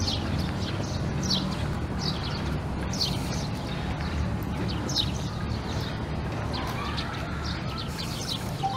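Small birds chirping, short falling notes repeated about once a second, over a steady low rumble.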